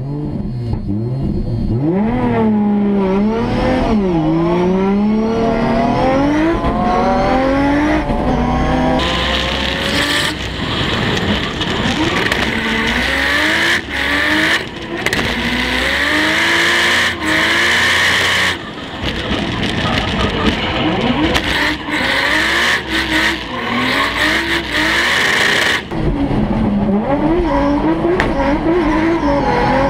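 Nissan S15 Silvia drift car's turbocharged RB engine revving up and down hard through a drift, heard on board. Loud tyre squeal joins in about a third of the way through and drops away a few seconds before the end.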